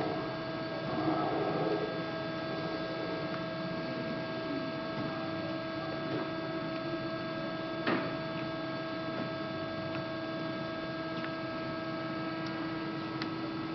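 LVD PPCB 150-ton hydraulic CNC press brake running, a steady hum made of several even tones, with one sharp click about eight seconds in.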